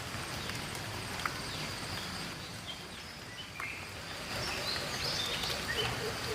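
Birds chirping with short scattered calls over a steady outdoor hiss and a thin high steady tone. About five seconds in, a lower call starts repeating a few times a second.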